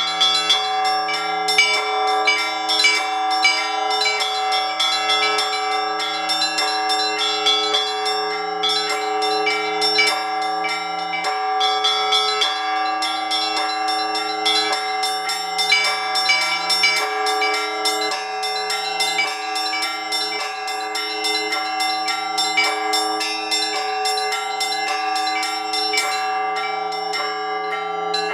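Orthodox church bells rung together by a bell-ringer: small bells struck in a quick, steady rhythm over the ringing of larger bells, with a low bell sounding every second or two, without a break.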